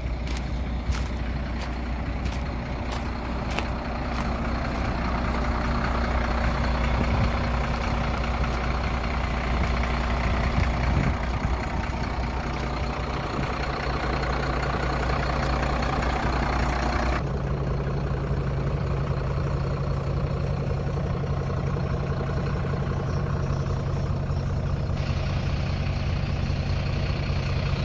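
A 2006 Iveco Trakker AD260T3 truck's diesel engine idling steadily with a low hum. About two-thirds of the way in the sound changes abruptly: the higher hiss drops away and the low hum stays.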